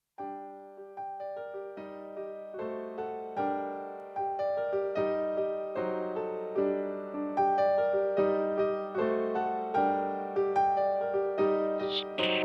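Keyboard intro of a new-wave rock song: a piano-like keyboard playing a steady run of broken-chord notes, each struck and fading, slowly growing louder. A hiss swells in just before the end.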